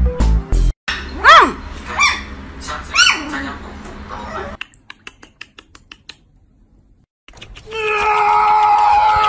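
Puppy cries: three short high yelps, each rising then falling in pitch, then a few faint ticks, then a long steady high-pitched cry near the end lasting about three seconds.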